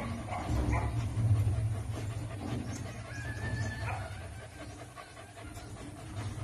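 A Belgian Malinois puppy whining while being towel-dried, with a thin high whine lasting under a second about three seconds in, over the low rubbing of the towel against its coat.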